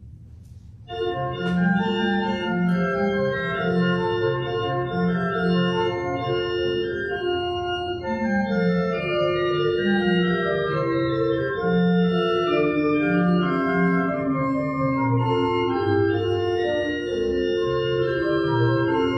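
Church organ starts playing about a second in: held chords over a moving bass line.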